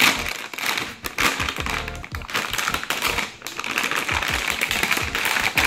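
Crinkly metallic anti-static bag rustling and crackling as it is opened and a graphics card is worked out of it, with quick irregular crackles throughout. Background music runs underneath.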